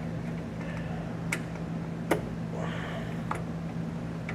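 Razor knife cutting through a thin plastic standoff tab, giving a few sharp clicks as the blade snaps through, the loudest about two seconds in, over a steady low hum.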